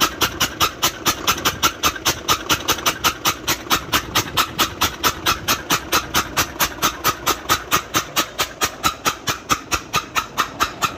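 Nissan FE6 six-cylinder diesel truck engine running with its No. 1 injector loosened, giving a steady rhythm of sharp hissing puffs, about five a second. With that cylinder cut out, the crankcase blow-by stops, which marks the No. 1 cylinder as the source of the blow-by.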